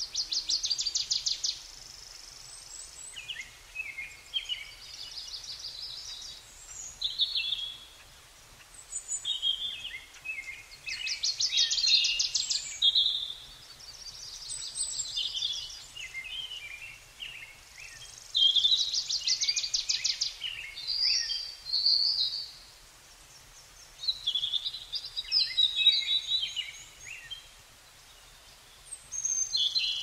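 Songbirds singing: varied chirping phrases and fast rattling trills, a new phrase every few seconds with short pauses between.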